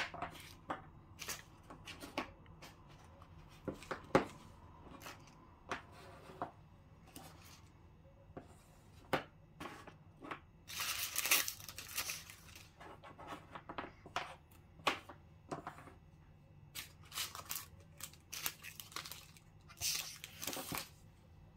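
Light clicks and taps of KitKat wafer bars and pieces being set down on a hard tabletop, then crinkling of foil and plastic candy wrappers being handled, in two longer spells around the middle and near the end.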